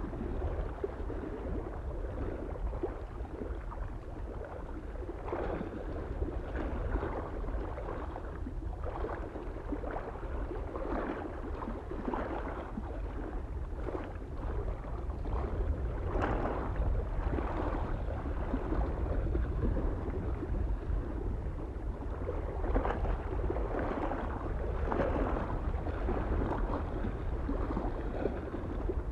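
Small waves lapping irregularly against a mountain lake shore, each with a short splash, over a steady low rumble of wind on the microphone.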